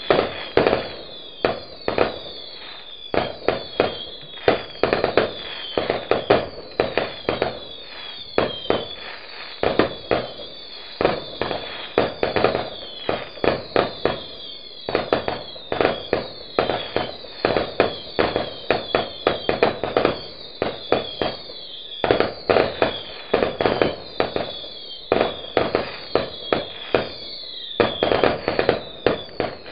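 Fireworks going off in a rapid, continuous barrage of sharp bangs, coming in louder clusters every few seconds, with many short high falling whistles mixed through them.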